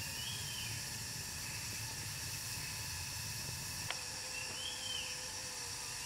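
Outdoor ambience: a steady high-pitched insect drone over a hiss, with two short chirps, one about half a second in and one near five seconds, and a single sharp click just before four seconds.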